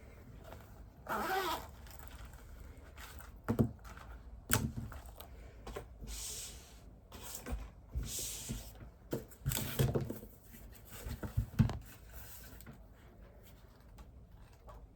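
Study things being handled on a desk: irregular rustles and scrapes, with a few sharp knocks as items are set down.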